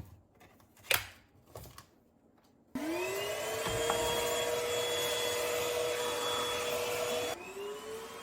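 Moolan V1 Pro cordless stick vacuum: a few handling clicks, then the motor switches on almost three seconds in with a rising whine that settles into a steady run. About seven seconds in the sound drops and the motor winds up again, running more quietly.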